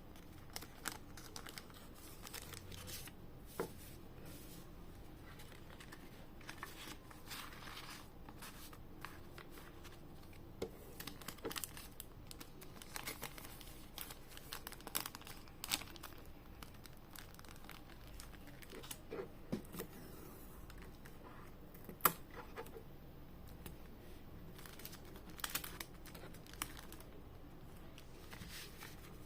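Orders being packed by hand: packaging material crinkling and being torn, with scattered small clicks and taps and one sharper click about three-quarters of the way through.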